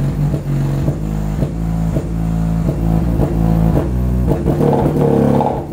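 Krack Audio KEW-124XB subwoofer playing bass-heavy music in free air at close to 500 watts RMS, its cone in long excursion. The voice coil hits the magnet: over-excursion of the unenclosed driver, with the amplifier clipping a little.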